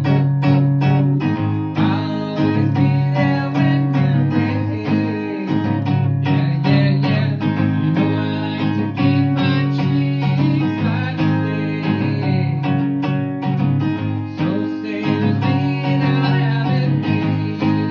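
Music led by strummed acoustic guitar, with steady low notes underneath.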